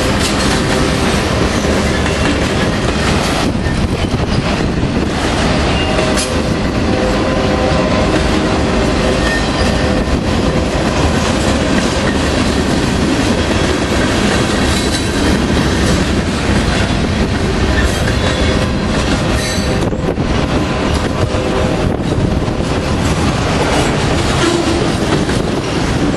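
Freight train of autorack and boxcars rolling past close by: a steady, loud rumble of wheels on rail, with faint thin squealing tones coming and going from the wheels.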